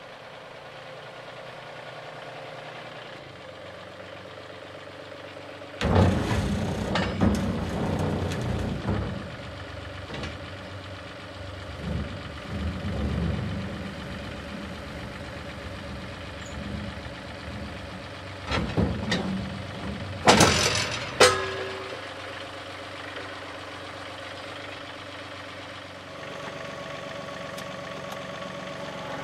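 John Deere 2038R compact tractor's three-cylinder diesel running steadily while its loader pallet forks slide under a steel landscape rake on a trailer deck and lift it off. Loud metal clanks and rattles about six to nine seconds in, and sharp clanks again around twenty seconds in.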